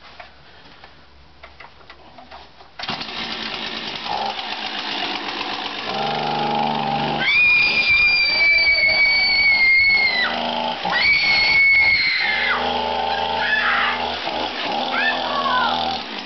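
A two-stroke chainsaw engine starts suddenly about three seconds in and runs and revs loudly. Over it a woman screams: two long, high screams that drop off at the end, then shorter cries near the end.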